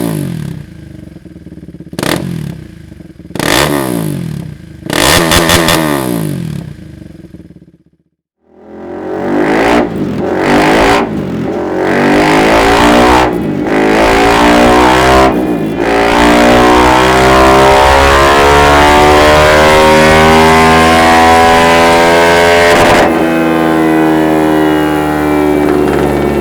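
KTM 390 Adventure's single-cylinder engine through a Dominator aftermarket exhaust: four sharp throttle blips, then, after a brief silence, a long pull with the revs climbing steadily for about fourteen seconds, as on a dyno run. Near the end the throttle closes and the revs fall away.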